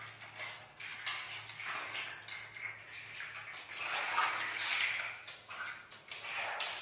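Pet otter making noises with water sloshing, including a brief high falling squeak about a second in.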